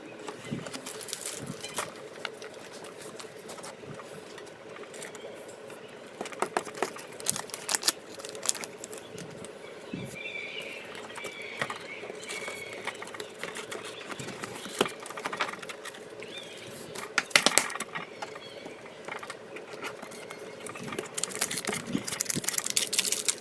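Trading cards and their packaging being handled: scattered clicks and short rustles, busiest near the end, over a faint steady hum.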